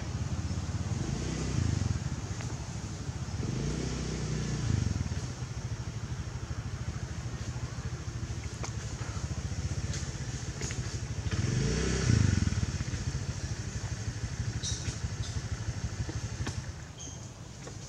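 Motor vehicle engine running, with a steady low hum that swells and falls away three times, loudest about twelve seconds in, as vehicles pass. A few faint ticks are heard near the end.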